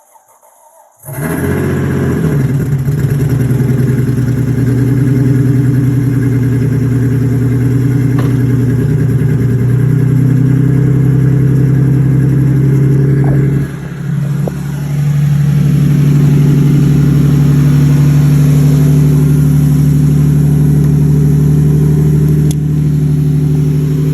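Freshly installed Toyota 2JZ inline-six in a Lexus IS300 catching about a second in and then running steadily at a loud, even idle, with a brief drop in level around the middle before it settles again.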